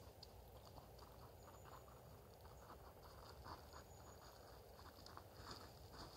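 Near silence: faint outdoor ambience, with scattered soft ticks and a few brief, thin, high chirps.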